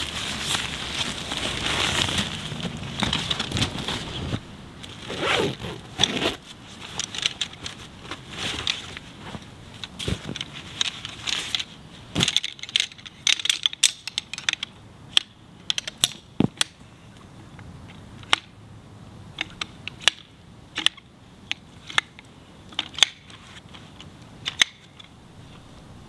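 Crinkling nylon of an inflatable sleeping pad being folded and rolled to squeeze the air out. About twelve seconds in this gives way to a string of sharp clicks as the shock-corded pole sections of a folding camp chair frame snap together.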